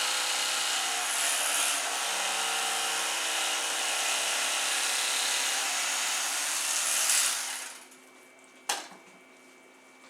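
Electric carving knife running steadily as it cuts through a deer backstrap, then switched off about three-quarters of the way in; a single sharp knock follows shortly after.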